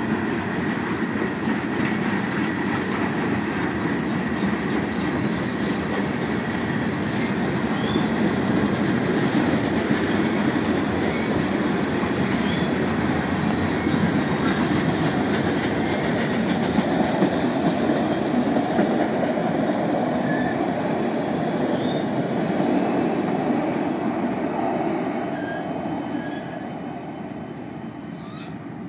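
Florida East Coast freight cars rolling slowly past on the rails, with steady wheel rumble and clicks over the rail joints. The sound fades near the end as the last car draws away.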